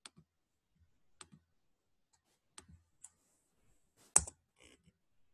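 Computer mouse and keyboard clicks: a few single, scattered clicks, then one sharper, louder click about four seconds in.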